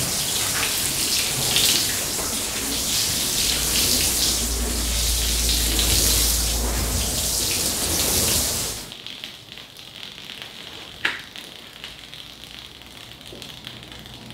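Shampoo solution sprinkling from a watering can's sprinkler head onto a soaked rug, a steady spray of water. It stops about nine seconds in, leaving a fainter hiss and a single click a couple of seconds later.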